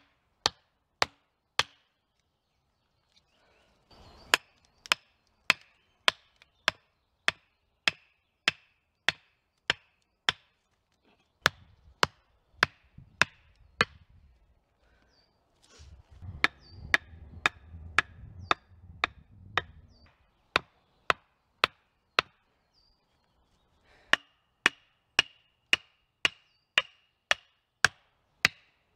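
Axe blows on wood in a steady rhythm, a little under two strikes a second, with two short pauses, one near the start and one about three quarters of the way through.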